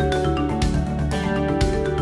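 Background music: struck, mallet-like notes over a steady bass, with a new note every quarter second or so.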